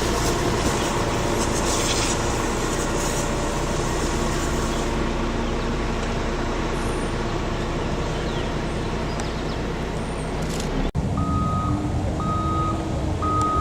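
Heavy truck engine running steadily. Near the end a truck's backup alarm starts beeping about once a second over the engine.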